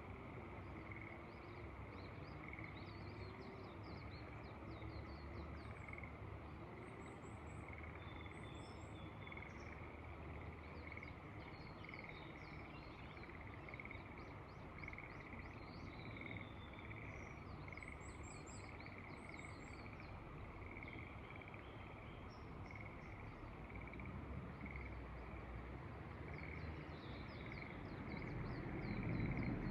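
Frogs calling in a steady chorus of short notes repeated about once a second, with small birds chirping high above them. A low wind rumble runs beneath and grows louder near the end.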